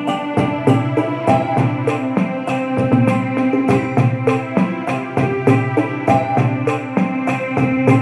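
Electronic arranger keyboard playing a Tamil devotional hymn tune, melody in the right hand over chords in the left, with a steady drum pattern of about two to three strokes a second.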